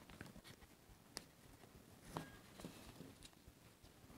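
Near silence with a few faint clicks and taps, the clearest about one and two seconds in, from handling a camera and its neck strap.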